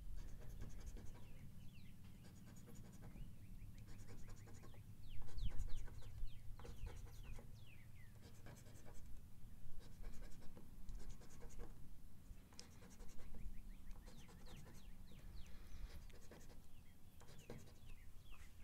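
A coin scraping the scratch-off coating from a lottery ticket, in many short, quick strokes in groups with brief pauses between them.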